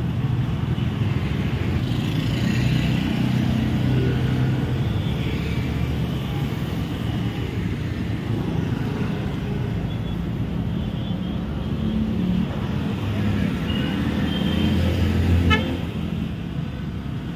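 Steady road traffic: motorbikes and cars running past, with a few short horn toots. About fifteen seconds in there is a sharp click over a brief louder rumble.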